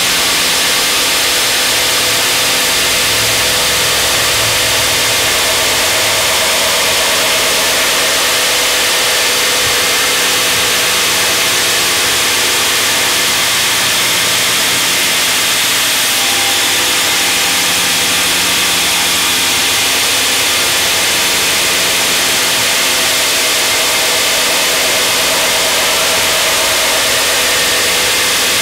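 Belt grinder running steadily while a steel knife blade, clamped in a bevel jig, is ground against the abrasive belt: a continuous grinding hiss over the motor's steady hum.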